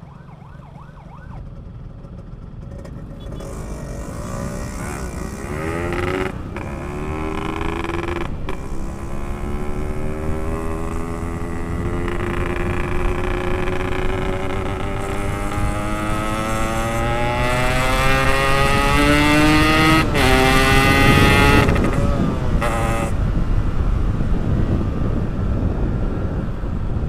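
Yamaha RX-King's two-stroke single-cylinder engine accelerating hard, its pitch climbing steadily as the throttle is held open, with brief dips at the gear changes about six, eight and twenty seconds in.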